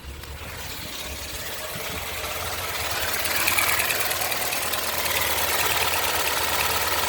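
Peugeot 309 SRi's 1.6-litre XU5JA four-cylinder engine running on a Bosch air flow meter under test, growing louder over the first three seconds or so, then holding steady.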